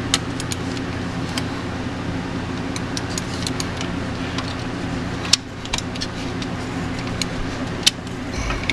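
Ratchet wrench on the crankshaft pulley bolt of a 4.6 V8, turning the engine by hand to bring the pulley notch to the timing mark for top dead center: scattered metallic clicks and clinks, with sharp knocks just after the start, about five seconds in and near the end. A steady low hum runs underneath.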